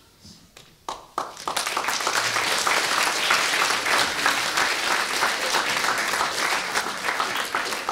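Audience applauding: it starts about a second in, builds quickly and carries on as a steady round of clapping.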